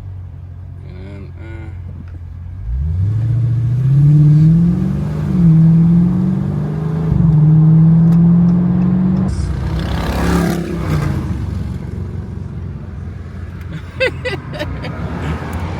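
Dodge Challenger Scat Pack's 392 HEMI V8 exhaust under hard acceleration, heard with the windows down. The engine note climbs steeply, dips and climbs again with upshifts, then falls away as he lifts off about nine seconds in. A brief rush of noise follows.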